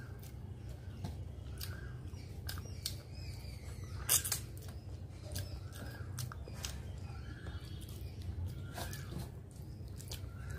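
Close-up eating sounds: wet mouth clicks and chewing, with fingers squishing rice and curry on a metal plate, over a steady low hum. A string of short sharp clicks, one louder about four seconds in.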